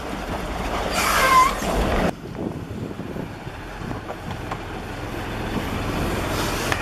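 Sailboat's engine running low and steady as the boat pulls away from the dock, with wind on the microphone. About a second in comes a short, louder noisy burst with a wavering high squeal, which cuts off abruptly.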